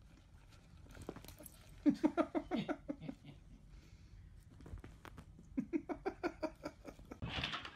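A dog making two short bouts of rapid, pitched, stuttering vocal pulses, about eight a second, each lasting about a second, a few seconds apart.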